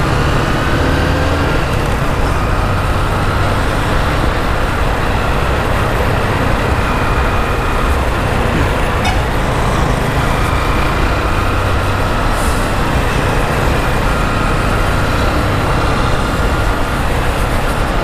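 Honda CG 150 Fan's single-cylinder four-stroke engine running while riding in traffic, under steady wind rush on the microphone.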